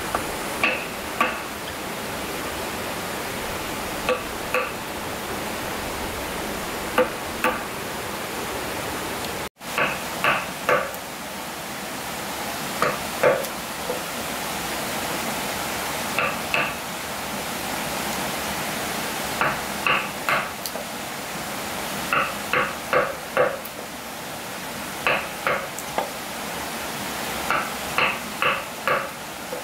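A hammer driving nails into wood: sharp, ringing strikes in quick groups of two to four, a group about every three seconds, over a steady rushing background noise.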